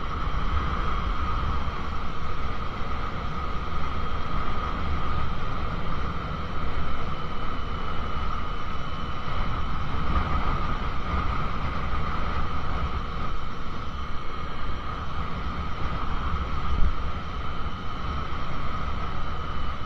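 2001 Honda CBR600 F4i's inline-four engine running steadily while riding along, with a faint tone that drifts gently in pitch, under a heavy rumble of wind on the camera microphone.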